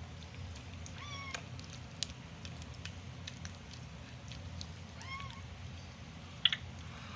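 A newborn Shih Tzu puppy gives two short, high squeaks, each rising and falling, about four seconds apart, while its nose is being cleared with a dropper. A brief sharp sound near the end is the loudest moment.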